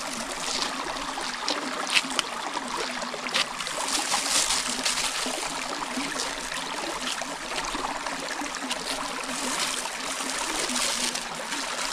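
Steady rush of running water from a small stream, with a few faint clicks from above it.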